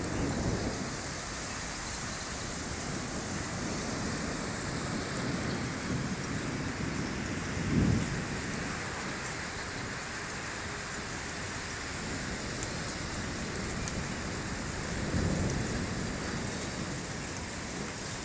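Heavy rain pouring steadily during a thunderstorm, with short low rumbles of thunder about eight seconds in and again near fifteen seconds.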